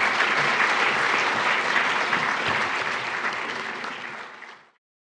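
An audience applauding, a dense steady clapping that tails off and then cuts off abruptly near the end.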